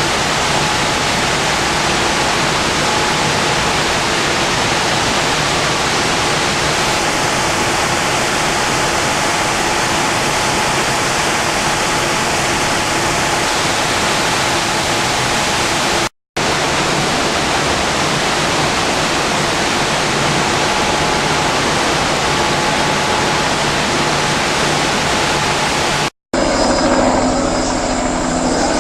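Fast-flowing floodwater rushing in a steady loud hiss, cut off briefly twice. For the last couple of seconds a steady droning engine takes over.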